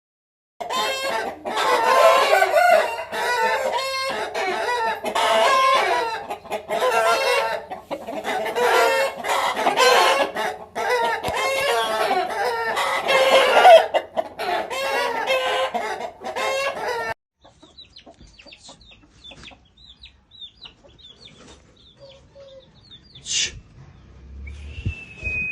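Aseel chickens, hens clucking and roosters crowing, many calls overlapping over a low steady hum. The sound cuts off abruptly about 17 seconds in, leaving only faint chirps and a short high glide near the end.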